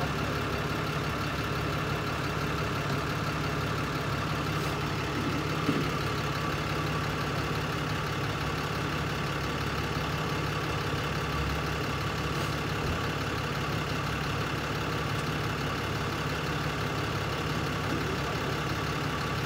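Tow truck's engine idling steadily, with one brief knock about six seconds in.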